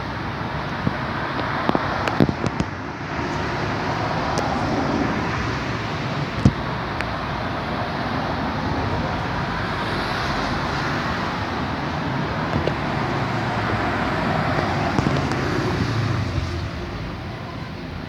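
Road traffic passing: car engines and tyre noise swelling and fading as vehicles go by, with a few sharp clicks about two seconds in and again about six seconds in.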